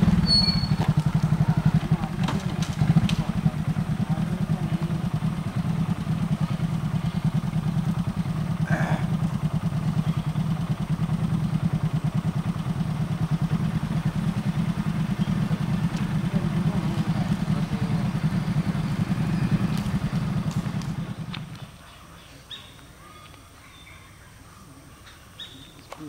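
A motor vehicle's engine idling steadily with a rapid, even low pulse, which cuts off near the end, leaving a faint background.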